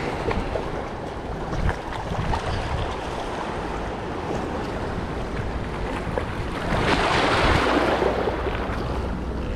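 Wind buffeting the microphone with a steady low rumble, over the wash of open water. About seven seconds in, a louder rush of water-like noise swells for about a second and a half, then falls back.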